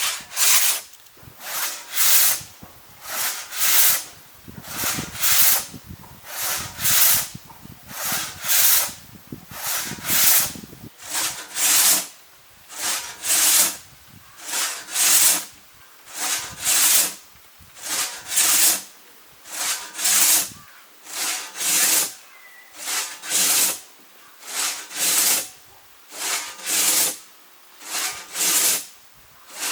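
Steady rhythm of rasping, scraping strokes, roughly one loud stroke a second with a weaker one between, like a back-and-forth hand tool working a material.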